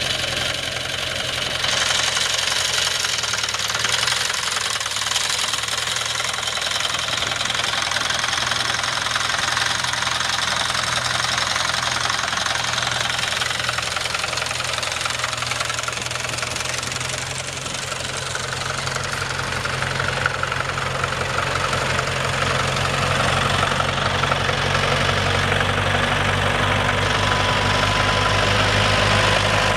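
The 1979 Kubota L345 tractor's V1501 four-cylinder diesel engine running steadily as the tractor drives along. It dips slightly past the middle and grows louder toward the end.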